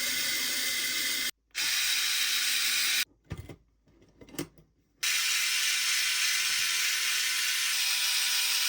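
Small power tool, such as an electric screwdriver, running steadily while driving screws into the skid assembly. It drops out abruptly twice, briefly about a second and a half in and for about two seconds near the middle, with a few light knocks in the gap.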